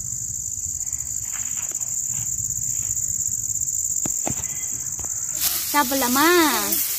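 Steady, high-pitched chorus of insects chirring, cutting off about five and a half seconds in. Near the end a short voice rises and falls in pitch.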